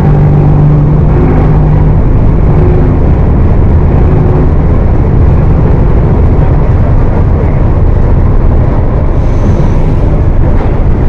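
Exhaust of a Mercedes-Benz OF 1418 bus's diesel engine running loud and continuous, a steady pitched drone in the first two seconds giving way to a dense, even rumble.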